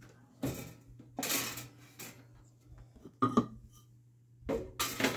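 Small craft supplies being handled and set down on a work table: a few separate clinks, knocks and scrapes, with a sharp click a little past three seconds in.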